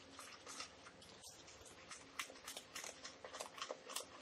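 Metal spoon stirring a dry seasoning mix in a plastic bowl: a quick, irregular run of faint scrapes and clicks against the bowl.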